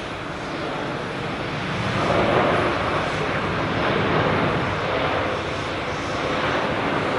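Jet airliner's engines passing, a dense rushing noise that swells about two seconds in and stays loud, rising and falling slowly.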